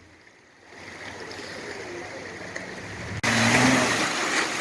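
Flowing river water with a vehicle engine running, faint at first and then much louder from about three seconds in.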